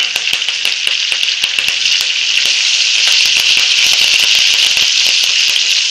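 Fresh curry leaves sizzling and crackling in hot oil with garlic and green chillies, a dense steady hiss full of sharp pops that grows a little louder over the first couple of seconds. This is the tempering (phodni) stage, with the leaves frying toward crispness.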